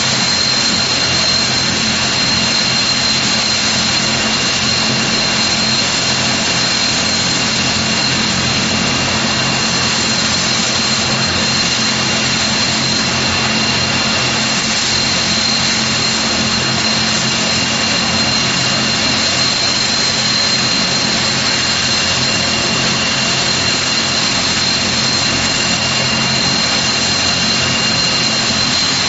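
Vickers Vanguard airliner's Rolls-Royce Tyne turboprop engines running at a steady speed: loud, even engine noise with a constant high-pitched whine over it.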